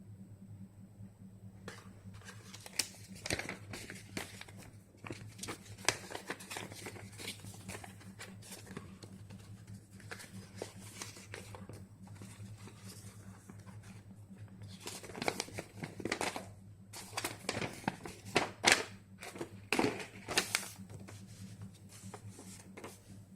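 Product packaging being handled and opened by hand: crinkling plastic and cardboard with irregular rustles and sharp clicks, busiest in the second half. A steady low electrical hum sits underneath.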